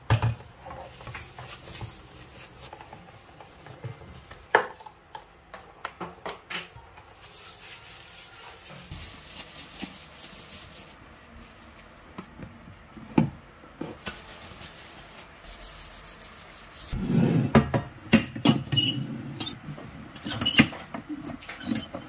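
Rice cooker being cleaned and handled: rubbing and wiping, with scattered light clicks and knocks of its aluminium inner pot and lid against the counter. Near the end comes a louder spell of knocking and clattering as the parts are put together.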